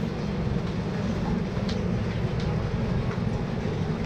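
Steady low rumble of indoor market ambience, with a few faint clicks.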